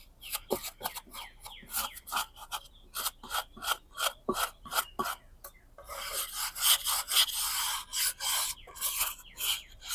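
Hand scraping and scrubbing of stripper-softened old paint off a car's wheel rim: a run of short, sharp strokes, then a few seconds of continuous scrubbing about six seconds in, then short strokes again.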